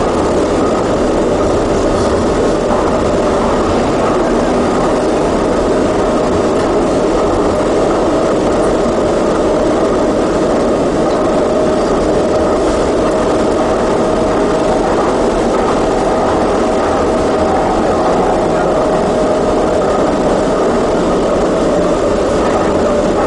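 Docklands Light Railway train running steadily through a tunnel, heard from on board: an even rumble of wheels on rails and running gear, with a faint steady whine held throughout.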